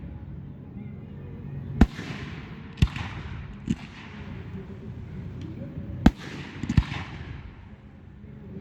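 Fireworks display: aerial shells bursting with five sharp bangs spread through, each trailing off in a fading hiss, the last two close together near the end.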